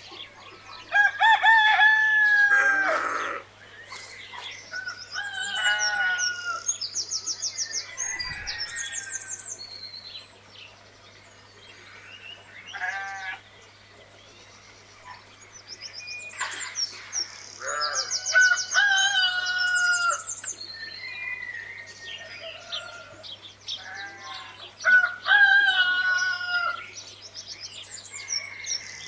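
A rooster crowing several times, the first long crow about a second in, with small birds chirping in quick, high trills between the crows.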